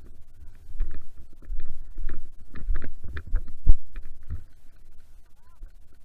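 Low rumbling on the microphone with a run of irregular knocks and rustles for the first few seconds, the loudest a thump a little past halfway: movement and handling noise on the camera.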